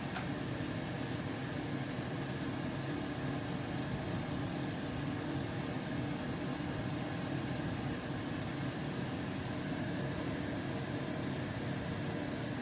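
Steady machine hum from a small motor, even throughout, with a brief click right at the start.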